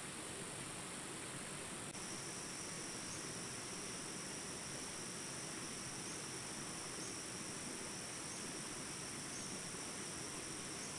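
Jungle ambience recording: a steady high insect chorus over the even rushing hiss of small river rapids. About two seconds in, a new, lower steady insect tone takes over.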